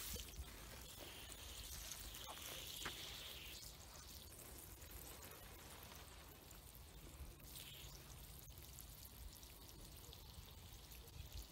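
Water pouring faintly from a hose-fed watering wand into the soil of a planting hole around a transplanted pepper seedling.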